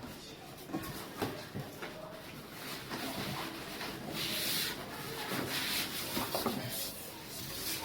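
Packaging rubbing and rustling while an air conditioner's indoor unit is handled, with a few light knocks and hissy scraping sounds.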